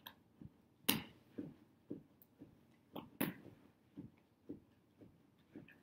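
Chest compressions on a CPR training manikin: soft, even thumps at about two a second. Two louder, sharper clacks stand out about one and three seconds in.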